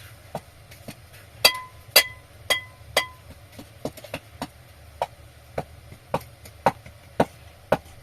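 Repeated sharp blows, about two a second. Four of them, about a second and a half in, ring briefly with a metallic tone.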